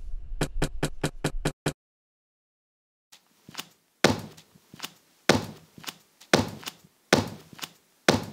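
Cartoon sound effects of a rubber stamp thumping down onto a stack of paper: a row of separate thuds about a second apart, each with a short ring. Near the start there is a quick run of about seven sharp clicks, then a short silence.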